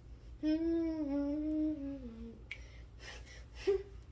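A woman humming one long note, about two seconds, that slides down at the end, followed by a single sharp click and a brief hummed note near the end.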